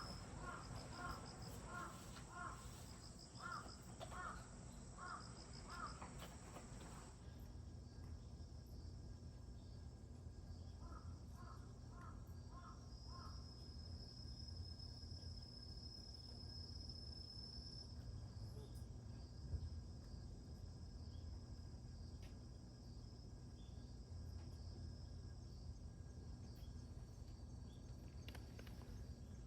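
Insects trilling steadily in the background while a bird calls in a series of short, evenly spaced notes, about two a second. The notes run for the first several seconds and come back briefly about eleven seconds in.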